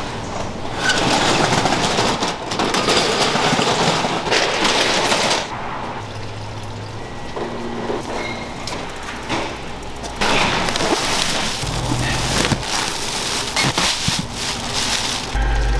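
Mung bean pancakes (bindaetteok) frying in oil on a griddle, a dense sizzle with many small pops. It swells louder twice: for about five seconds at the start and again for about five seconds after the ten-second mark.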